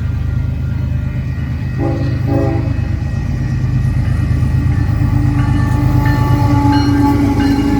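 Union Pacific freight train led by GE Gevo locomotives, rumbling past, with the locomotive horn giving two short blasts about two seconds in. A steady pitched tone builds over the rumble from about four seconds in.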